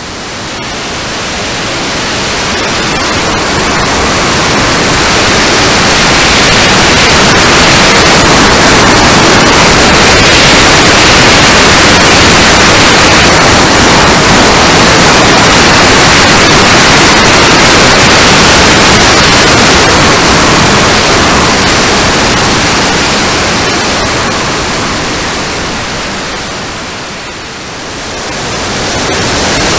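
Loud, steady rush of airflow and jet-turbine noise, heard from a camera riding on an RC model Rafale B jet in flight with its TJ74 turbine. It swells over the first few seconds, dips briefly near the end, then rises again.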